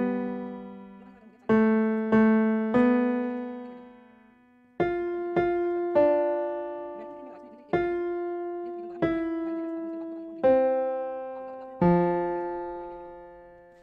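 Background music: a slow piano melody, single notes and small chords struck every second or so, each ringing out and fading before the next.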